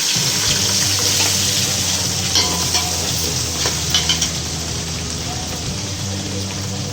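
Chopped onions frying in hot oil with whole spices and green chillies, a steady sizzle, with stirring and a few sharp clicks against the pan between about two and four seconds in.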